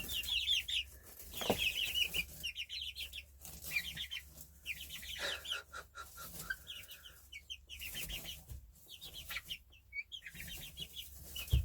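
Young chickens peeping in quick runs of short, high-pitched chirps while they feed, with a few soft knocks.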